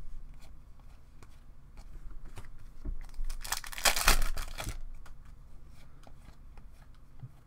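Trading-card pack wrapper being torn open and crinkled, loudest for about a second and a half a little after three seconds in, with light clicks of cards and wrapper being handled around it.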